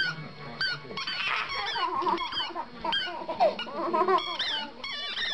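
Rubber squeaky dog toy squeaking over and over in short, high, wavering squeaks as a small terrier chews it.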